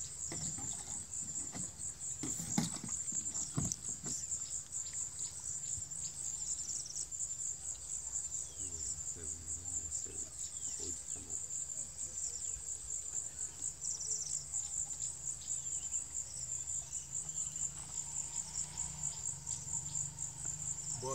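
Insects trilling in a steady, shrill, fast-pulsing chorus, with a couple of sharp knocks a few seconds in.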